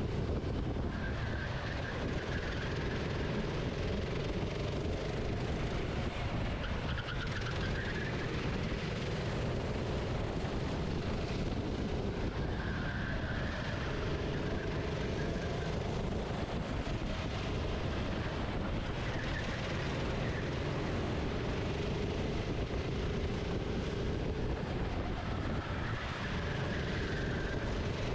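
Racing kart engine heard onboard at racing speed, its pitch rising as it accelerates out of corners and dropping as it slows for the next, over a steady rush of air and track noise.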